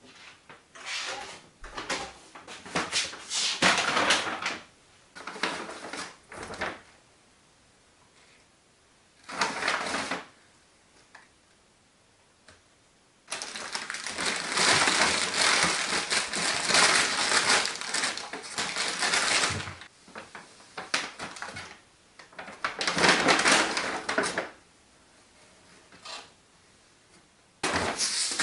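Paper grocery bag rustling and crinkling as groceries are handled and taken out of it, in irregular bursts with quiet gaps between, the longest stretch lasting about six seconds in the middle.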